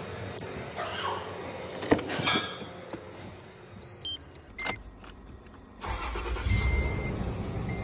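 Toyota car engine starting about six seconds in and settling into a steady run, now starting after a no-crank, no-start fix. Over it, a warning chime beeps about once a second. Before the start there is a click and a few short electronic beeps.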